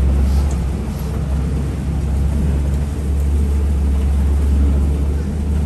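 Safari truck driving along, a steady low engine and road rumble heard from aboard the vehicle.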